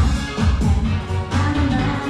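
Music with a steady, deep kick drum beating about twice a second under layered instruments.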